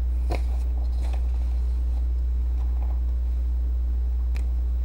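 Steady low electrical hum on the recording, with a few faint rustles of paper being handled, about a third of a second in, again about a second in and near the end.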